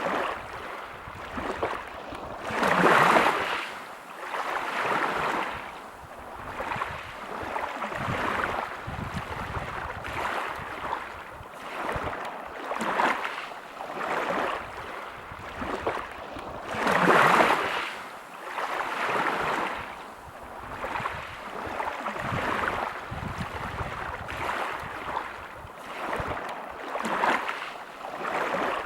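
Sea waves breaking on a pebble beach, each surge rising and falling away every couple of seconds, with two louder breakers about three seconds in and just past halfway.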